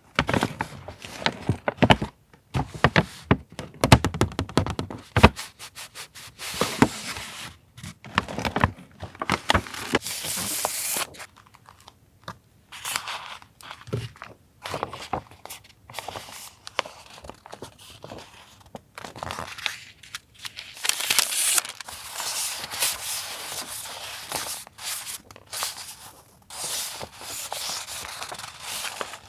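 Paper and plastic stationery packaging being handled at close range: irregular crinkling, rustling and tearing, broken by many sharp taps and knocks as items are picked up and set down.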